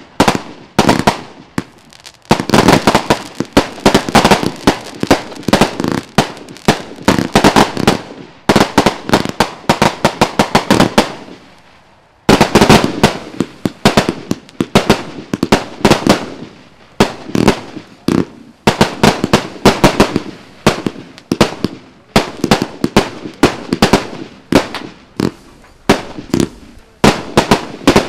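Haokan Fireworks 'Way of the Dragon' firework cake firing a rapid string of shots, launch bangs and aerial bursts following one another several times a second, with brief lulls about two seconds and twelve seconds in.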